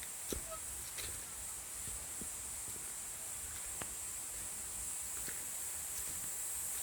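Footsteps on a forest trail, a few irregular crunches and knocks, over a steady high-pitched hiss.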